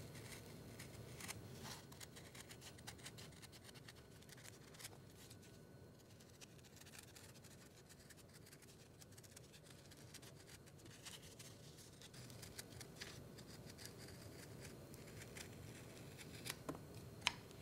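Scissors snipping through fabric backed with fusible web paper: faint, repeated short cuts, sparser for a few seconds in the middle.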